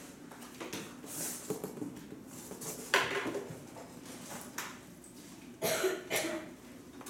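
Papers and small objects handled at a lectern: scattered rustles and knocks, a sharp knock about three seconds in and two louder ones close together near the end.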